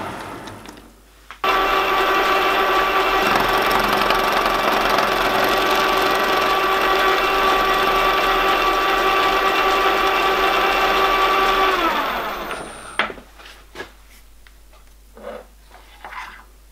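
Small vertical milling machine's spindle running steadily while drilling a small metal part held in a machine vice; near the end the spindle winds down and stops. Then a few sharp clicks and knocks as the drill bit is handled and changed in the chuck.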